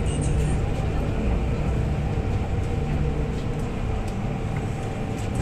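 Steady hum inside an MTR Island Line train car, with a few constant tones from its onboard equipment and scattered faint clicks.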